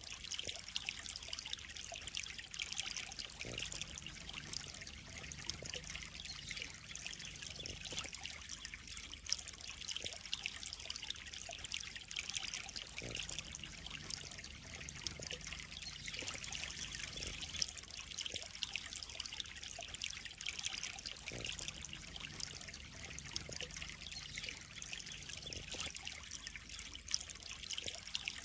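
Pond water trickling and splashing steadily.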